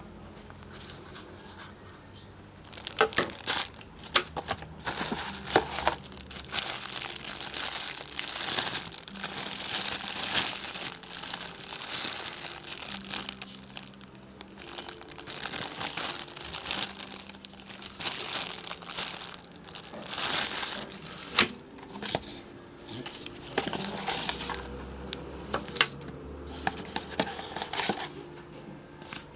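Clear plastic accessory bags crinkling and rustling as they are handled and opened, in irregular bursts with sharp crackles, getting louder about three seconds in.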